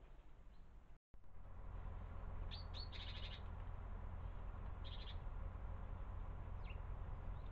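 Small garden birds giving short, high chirps: a quick cluster about two to three seconds in, another near five seconds and a single call near the end, over a steady low background rumble.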